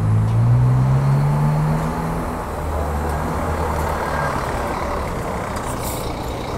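Diesel engine of a Marcopolo Paradiso G6 coach pulling away and driving slowly past. Its note climbs over the first two seconds as it accelerates, then settles lower and a little quieter as it moves off.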